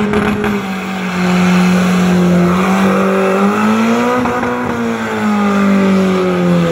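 A Honda's engine held at high, steady revs through a burnout, rising slightly in the middle and dipping briefly near the end before climbing again, over the hiss and screech of the spinning tyres.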